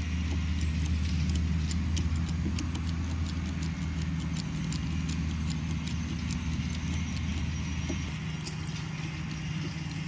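Strongway Stubby Jack 12-ton hydraulic bottle jack being pumped to raise a beehive, giving a long run of irregular clicks over a low steady hum.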